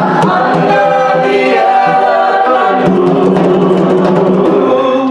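A group of voices singing together in a live song with djembe hand drumming underneath, holding long sustained notes in the closing phrase. The singing stops abruptly near the end.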